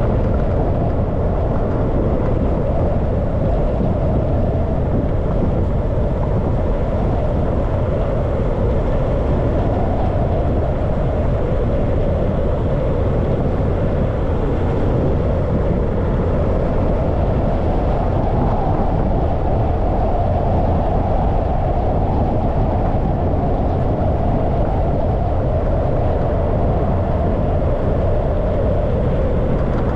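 Steady wind and road noise of a car driving along, picked up by a camera mounted on the hood.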